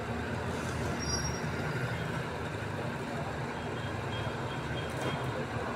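Steady street din, mostly a low rumble of passing traffic.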